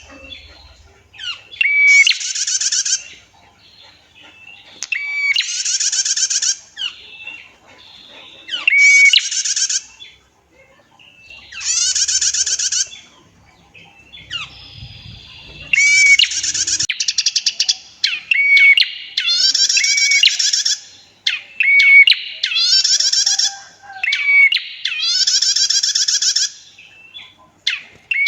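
Female prinia (prenjak) calling: a series of buzzy trills, each about a second long and opened by a short clear note, repeated every two to three seconds and coming faster in the second half.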